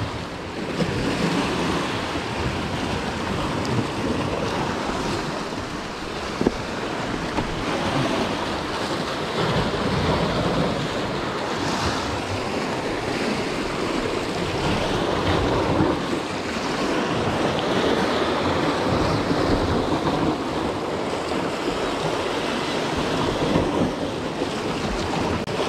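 Sea surging and breaking against rocks below, mixed with wind buffeting the microphone. A single short knock partway through.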